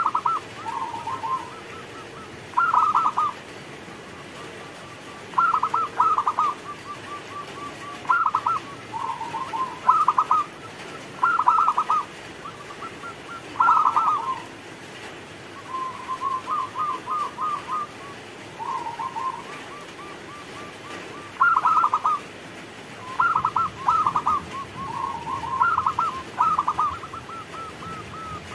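Zebra dove (perkutut) cooing: a stuttering, trilled phrase of rapid coos repeated every two seconds or so.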